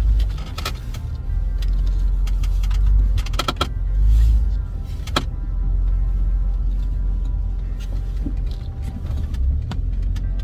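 Jeep Wrangler JK driving slowly over a rough off-road trail, heard from inside the cab: a steady low engine and drivetrain rumble, broken by a few sharp knocks and clunks from the bumpy ground.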